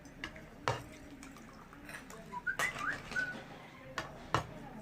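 A few sharp clicks and knocks of a utensil and snail shells against a cooking pot as the cooked snails are stirred and scooped. A few short high chirps sound about halfway through.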